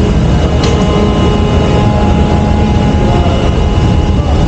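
Ship's steering gear room machinery running: a loud, steady low drone with a few steady whining tones over it, and a light click under a second in.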